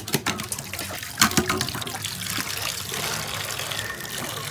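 Juice of blended green leaves being wrung out of a cloth by hand, streaming and splashing into a metal pan as a steady pouring hiss. A few sharp clicks and cloth handling sounds come in the first second or so.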